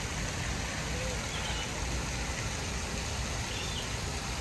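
Steady outdoor ambience: a constant low rumble with a few faint, short high chirps and distant voices.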